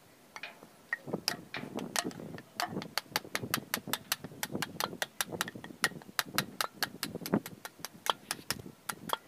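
A curved sickle-like blade chopping and shaving an upright bamboo stick in quick strokes, a sharp knock or click at each stroke, about three or four a second, starting about a second in.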